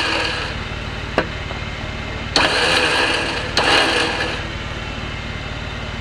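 Jeep engine idling steadily, with a sharp click about a second in and two short, sudden louder bursts a little over a second apart.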